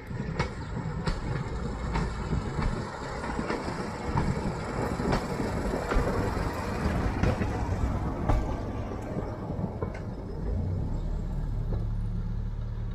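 1925 Ford Model T rail car running along the track and passing close by: a steady low rumble from its four-cylinder side-valve engine, with scattered sharp clicks from the running gear on the rails.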